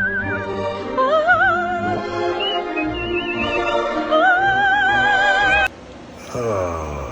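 Operatic singing with a wide vibrato over music, cutting off abruptly near the end. A short voice-like sound with a sliding pitch follows.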